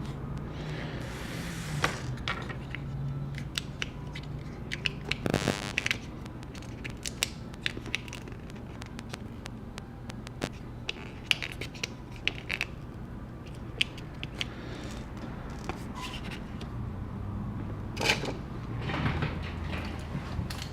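Precision screwdriver working tiny screws out of a 15-inch MacBook Pro: scattered light clicks and ticks of the driver, screws and small parts, with a short scrape about five seconds in and another near the end.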